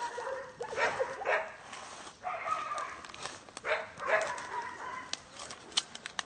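Tar-coated puppy whining and yelping in distress as lumps of tar are pulled off its fur by hand, a string of high cries each up to about a second long, with a few sharp clicks near the end.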